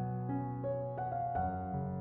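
Background piano music: a slow, gentle melody with a new note struck about every half second over held bass notes.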